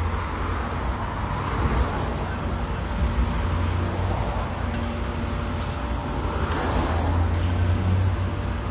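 Road traffic on a busy street: cars passing with a steady rumble and tyre noise, swelling as a vehicle goes by near the end.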